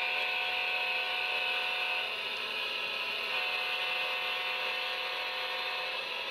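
HO scale model freight train, pulled by an Atlas Trainmaster diesel model, rolling past with a steady mechanical whir of motor and wheels on the track.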